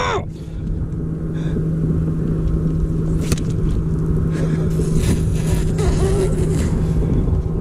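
Bass boat's motor running with a steady low hum, under wind rumble on the microphone.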